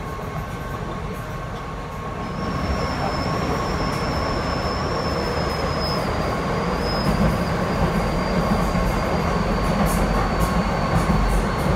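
Docklands Light Railway train running, heard from inside the carriage as it enters a tunnel: a steady rumble that grows louder about two seconds in, with a thin high wheel squeal starting at the same moment and holding, and a few sharp clicks near the end.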